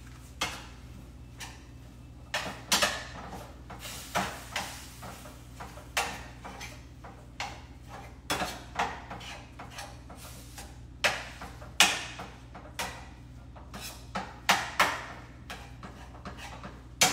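Kitchen clatter at the stove: irregular knocks and clacks of a cooking utensil and pans, roughly one or two a second with a few louder strikes, over a steady low hum.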